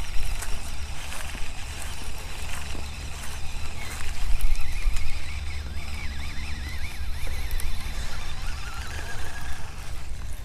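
Wind rumbling on the microphone, with a thin, wavering high-pitched call from about four to nine seconds in.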